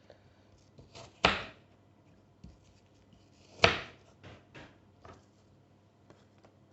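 Food being packed into a lunchbox: two sharp knocks about two and a half seconds apart, with lighter clicks and taps around them.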